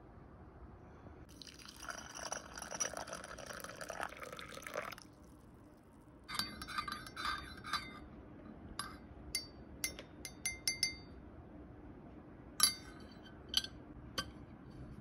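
Liquid pouring into a porcelain teacup for about four seconds. Then a metal teaspoon stirs and clinks quickly against the inside of the cup, followed by separate clinks and a few sharper ones near the end as the spoon is set on the saucer.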